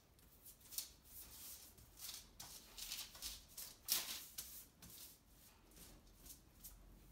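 Pastry brush stroking olive oil across baking paper: a run of faint, soft swishes at an uneven pace, the strongest about four seconds in.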